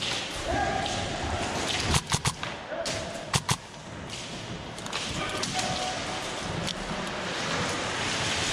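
Airsoft gun fire in short bursts: three quick sharp cracks about two seconds in and two more about a second later, echoing in a large hall.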